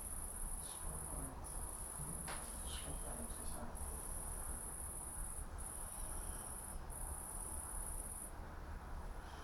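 An insect's high-pitched, steady buzzing song, running in long stretches with short breaks about every one to two seconds, stopping about eight seconds in.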